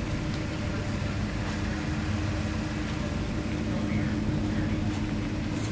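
A steady low-pitched mechanical drone, even and unchanging throughout, over a haze of background noise.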